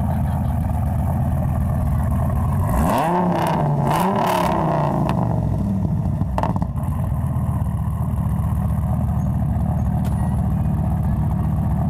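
Devon GTX's Viper-based V10 idling steadily, blipped twice in quick succession about three seconds in. The revs rise and fall each time, then it settles back to idle.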